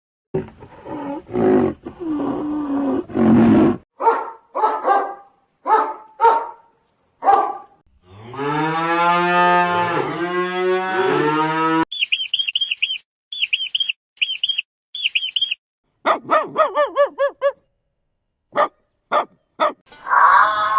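A string of different animal calls, one kind after another: a harsh noisy call, a run of short calls, two long low drawn-out calls with a bending pitch, a quick series of very high chirps, then more short calls and a few clicks.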